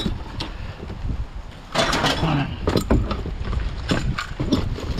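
Rummaging through rubbish in a plastic wheelie bin with a gloved hand and a grabber tool: plastic bags rustling and containers knocking and clicking, with a louder burst of rustling about two seconds in.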